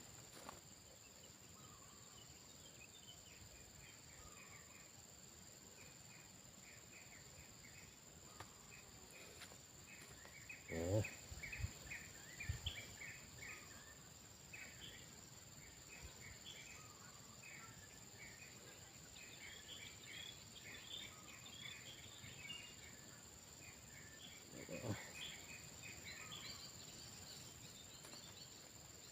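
Faint rural ambience: a steady high insect drone with many short, quick chirps of insects or small birds. A few louder low knocks come about 11 to 13 seconds in, and another brief low sound near the end.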